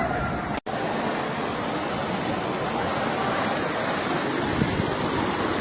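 Steady rushing noise of hail-laden floodwater running down a street, broken by a short dropout about half a second in.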